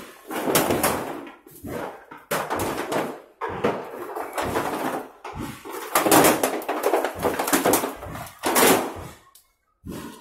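Corrugated metal roofing sheets and fire debris clattering and scraping in a rapid string of loud, rough bursts, about a dozen in ten seconds.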